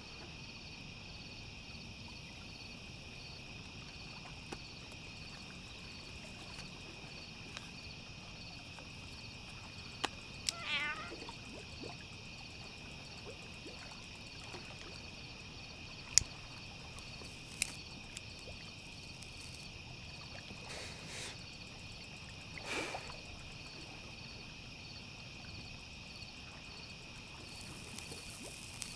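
Night ambience of a steady chorus of crickets, with a few sharp clicks and a short falling animal call about ten seconds in, and another brief call later on.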